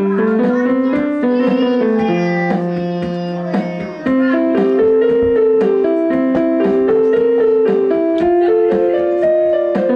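Portable electronic keyboard played: a melody and held chords over a steady beat, with a brief drop in level about four seconds in before the playing comes back in full.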